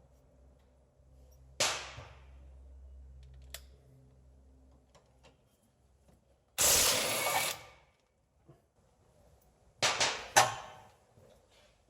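Sharp metallic cracks and knocks from hand tools working on a car's front brake caliper bracket bolts: one sharp crack early, a cluster of hits near the end, and a noisy rush lasting about a second in the middle.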